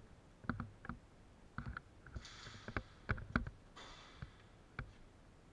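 About a dozen sharp clicks and knocks at irregular intervals, some in quick pairs. There are two short stretches of hiss, one a little past two seconds in and one just before four seconds in.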